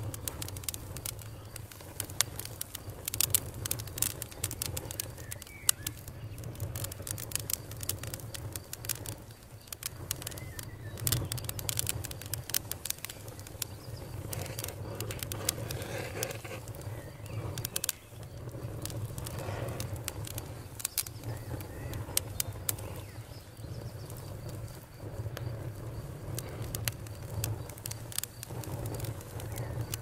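Wood campfire crackling, with frequent irregular sharp pops and snaps over a low steady rumble. Birds call faintly in the background.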